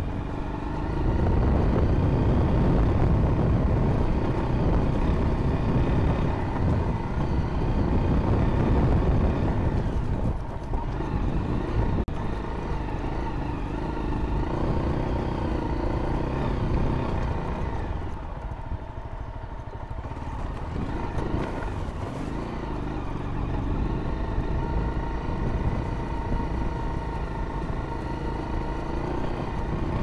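Honda CRF250L's single-cylinder four-stroke engine running as the dual-sport motorcycle rides over a rocky creek bed, its pitch rising and falling with the throttle. The engine eases off and drops quieter for a couple of seconds about two-thirds of the way through, then picks up again.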